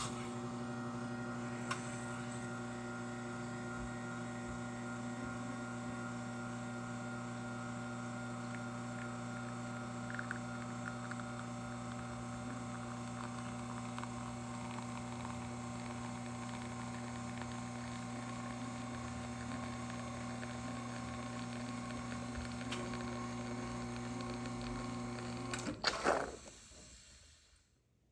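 Espresso machine pump humming steadily while an espresso shot is pulled. It cuts off near the end and is followed at once by a short burst of noise.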